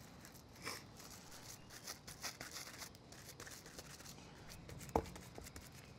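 Faint crinkling of plastic cling wrap and rubbing as gloved hands press ground meat into a wrap-lined loaf pan, with a short sharp click about five seconds in.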